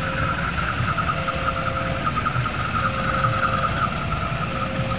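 Railway level crossing warning sounding: two tones alternate, each held a little under a second, over a steady high-pitched ringing with a fast flutter. Underneath is the low rumble of a passenger train's wheels rolling on the rails as it draws away.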